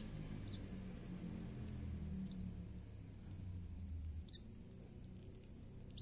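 Faint, steady high-pitched insect drone, with a low hum underneath and a few faint clicks.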